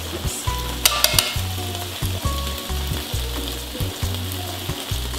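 Tomato sauce sizzling in a hot pan, a steady hiss, with a few sharp clicks about a second in as garlic is grated over it.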